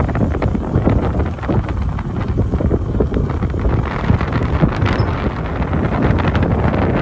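Wind buffeting the microphone: a loud, rough, uneven rumble.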